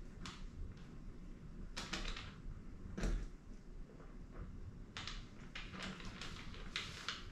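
Hands working a plastic drone and its camera plug: scattered light clicks, knocks and rustles, the loudest a knock about three seconds in.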